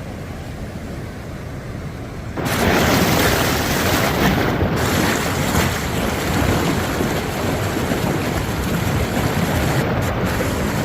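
Flash-flood water rushing down a wadi channel: a steady, noisy rush that jumps much louder about two seconds in and stays there.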